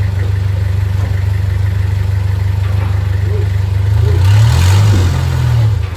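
Vehicle engine idling steadily, then louder with its pitch rising and shifting for about two seconds from around four seconds in, before settling back to idle.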